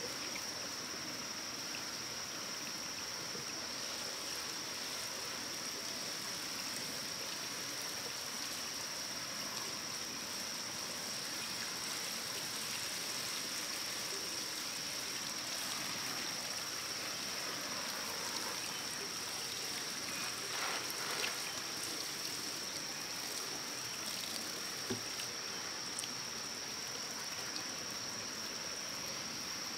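Steady flowing water of a stream, with a continuous high-pitched whine running over it and a couple of faint knocks about two-thirds of the way through.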